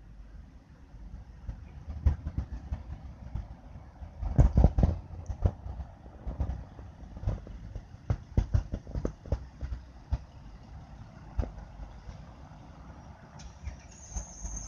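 Slow traffic on a snowbound freeway: a low rumble of crawling cars with scattered irregular knocks and clatter, heaviest about four seconds in. A thin high whine comes in near the end.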